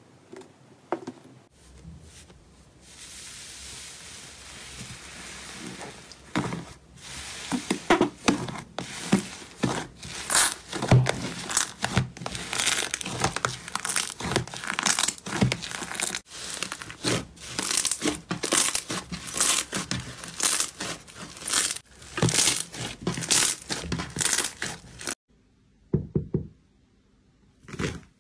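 Thick blue slime being squeezed and punched by hand in a plastic tub: after a few seconds of soft steady hiss, a long run of loud sticky crackling and popping squelches. It stops suddenly near the end, leaving a couple of faint crackles.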